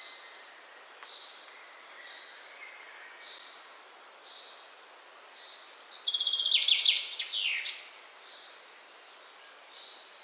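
A bird singing over a steady outdoor hiss: a soft high note repeats about once a second, and a louder burst of rapid chirps with quick downward sweeps comes about six seconds in and lasts nearly two seconds.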